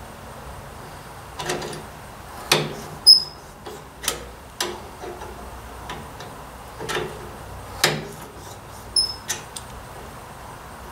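Hand tools clicking and clinking against metal, about nine sharp irregular knocks, while a 7/16 coarse tap is worked into a bolt hole on a tractor's hood mount. Twice a short, high metallic ping rings out, once about three seconds in and once near the end.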